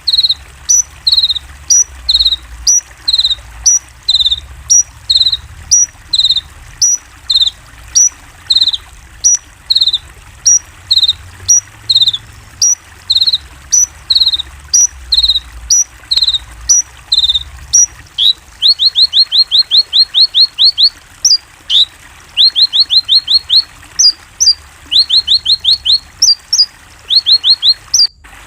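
Konin songbird calling: short high chirps repeated about twice a second, then from about two-thirds of the way through, quick runs of eight to ten down-sweeping notes.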